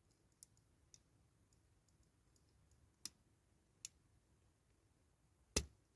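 A few faint, short clicks of a small horn-box part being handled and pushed onto a diecast toy car, with one sharper click near the end; otherwise near silence.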